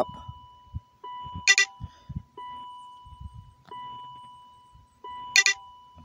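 The car's dashboard warning chime sounds over and over, a new fading tone about every second and a half. Two short, louder, brighter beeps come about a second and a half and five seconds in, with a few soft knocks as the wiring is handled.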